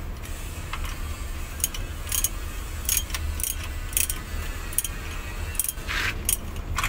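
Ratchet wrench clicking in short bursts as bolts at the transmission's output end are turned, with metal-on-metal rattles, over a low steady hum.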